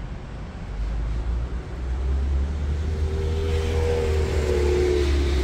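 A motor vehicle running nearby: a low engine rumble grows louder about two seconds in, and an engine tone comes in around the middle and dips slightly in pitch toward the end, as of a vehicle passing.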